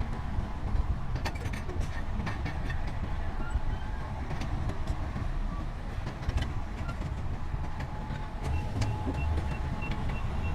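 Heavy earthmoving machinery at work: a diesel engine running low and steady, with scattered sharp metallic clanks and knocks.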